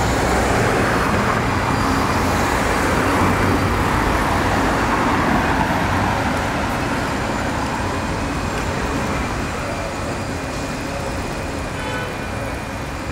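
Tram running on its rails, heard on board: a steady rumble and rail noise that swells in the first few seconds and eases off slightly after about six seconds.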